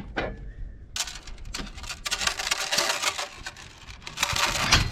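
A calf scuffling and clattering as it steps through a livestock pen: a dense run of rapid knocks and scrapes that starts about a second in and grows louder near the end.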